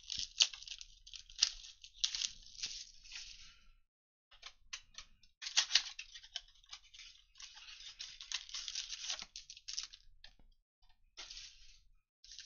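A cardboard blaster box of trading cards being torn open by hand, and the crinkly foil card packs inside being handled. The sound comes in uneven bursts of rustling and crackling with sharp clicks, with a short lull in the middle.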